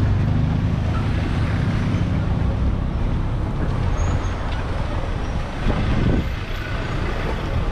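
City street traffic noise, with a nearby vehicle engine running as a low, steady hum that is strongest in the first few seconds and then eases off.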